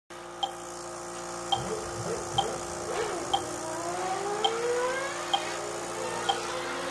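Short electronic beeps repeating about once a second, over the whine of radio-controlled cars' motors rising in pitch through the middle.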